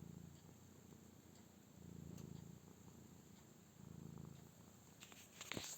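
Domestic cat purring faintly, a low rumble that swells and fades about every two seconds with its breathing.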